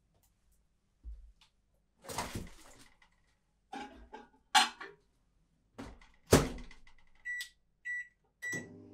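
Microwave oven door opened with a few knocks and clatters as a glass bowl goes in, then shut with a sharp clunk. Three short beeps follow as the buttons are pressed, and near the end the microwave starts running with a steady hum.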